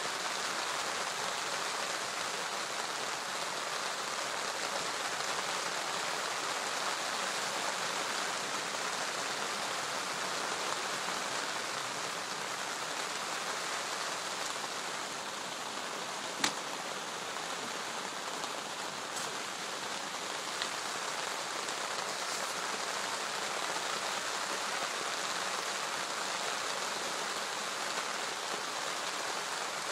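Steady rain falling on a lake, an even hiss, with one sharp tick about halfway through.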